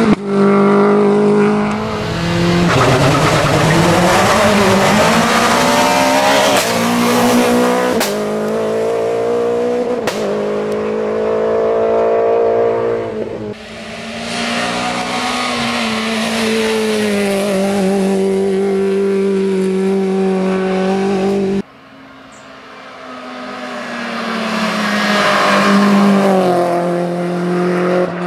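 Renault Clio Williams rally car's four-cylinder engine at full throttle on a hillclimb, revs climbing and dropping back with gear changes. There are two abrupt breaks in the sound, after which the engine is heard again at a different distance.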